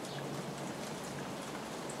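Steady rain falling, with scattered individual drops ticking close by.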